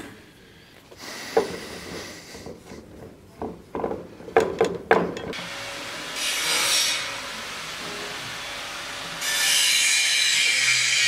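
A few sharp knocks of things being handled on the workbench, then a steady rubbing as a cloth is worked over the Damascus dagger's metal guard and hilt, louder from about nine seconds in.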